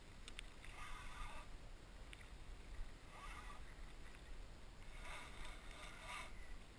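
Small waves lapping against a plastic kayak hull in soft, faint splashes every second or two, with a few faint clicks just after the start.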